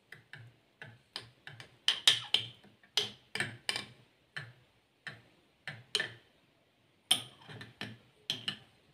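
Metal spoon stirring seeds and herbs steeping in boiled water in a small glass jar, clinking against the glass in a run of irregular ticks, about two or three a second, with a brief pause about six seconds in.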